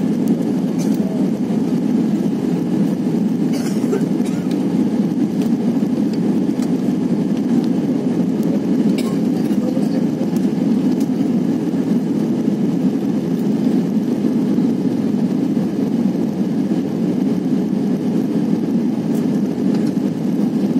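Steady airliner cabin noise from the jet engines and rushing air, heard from a window seat over the wing. The flaps are extended, so the aircraft is descending on approach.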